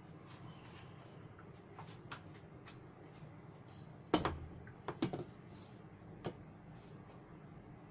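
Light taps and clicks of a metal mesh sieve and kitchen utensils as flour is sifted into a stainless steel bowl. One sharp knock comes about four seconds in, with a few more clicks just after.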